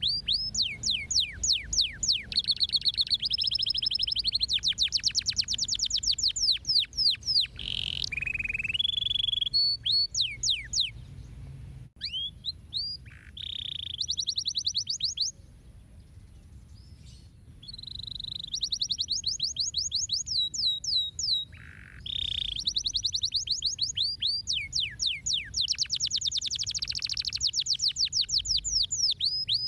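Domestic canary singing a long, loud song of rapid trills, each built from fast repeated falling notes that change pattern from phrase to phrase. The song breaks off for about two seconds near the middle.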